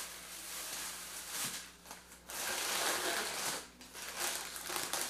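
Subway sandwich paper wrapper and plastic carrier bag crinkling and rustling as a footlong is taken out and unwrapped by hand. The crinkling comes in three stretches, with short pauses about two seconds in and just before four seconds.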